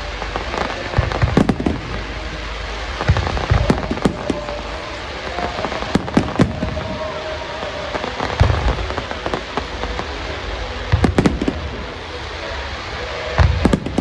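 Aerial fireworks display: shells bursting in loud bangs every one to three seconds, several in close pairs, over a continuous noisy hiss.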